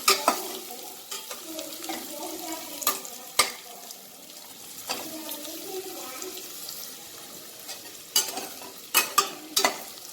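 Sliced onions frying in hot oil in a kadai, stirred with a utensil that scrapes and knocks against the pan in clusters near the start, about three seconds in and near the end.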